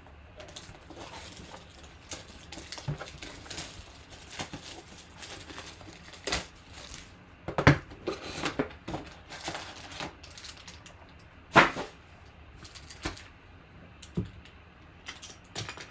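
Irregular clicks and taps of typing on a computer keyboard, with two louder knocks, one about eight seconds in and one about twelve seconds in.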